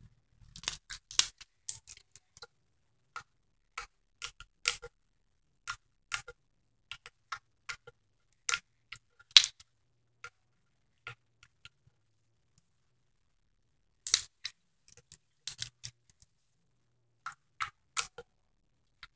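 Clear green glitter slime being squeezed, stretched and poked by hand, giving off many irregular sharp clicks: really clicky. The clicks thin out for a few seconds partway through, then pick up again.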